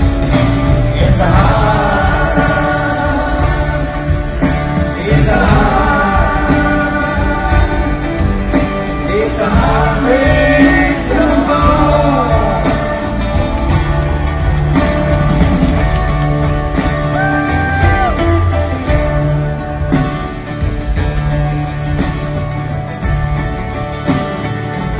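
Live acoustic band music: strummed acoustic guitars over upright bass and drums, with sliding, bending melody lines over the top.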